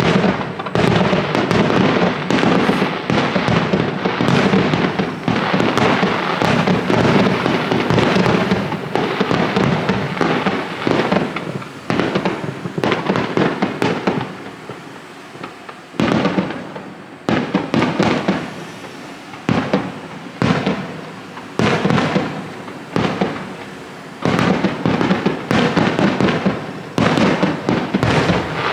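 Fireworks display: a dense barrage of bursts and crackling for about the first ten seconds, thinning out, then separate bursts about once a second through the second half.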